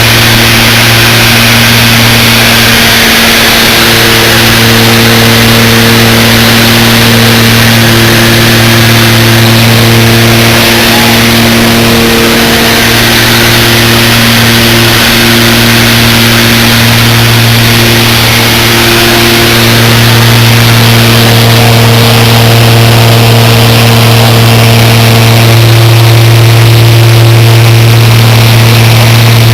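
Loud, steady engine drone: a strong low hum with a few steady higher tones over a constant hiss, unchanging throughout.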